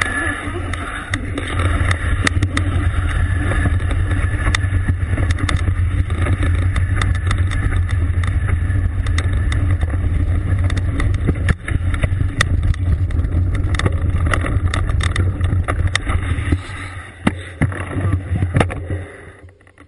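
Mountain bike riding over a dirt and gravel trail: a steady low rumble of wind buffeting the bike-mounted camera's microphone, with tyre noise and frequent sharp clicks and rattles from the bike and stones. It gets quieter and more broken about three-quarters of the way through.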